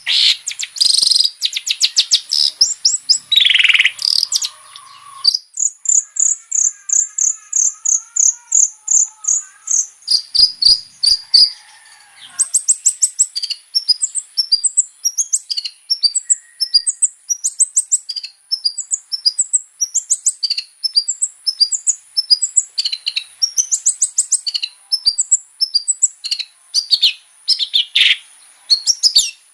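Long-tailed shrike singing loudly and continuously: a fast, varied stream of sharp chirps, trills and runs of repeated notes, copied from other birds' songs. A steady high-pitched tone runs underneath.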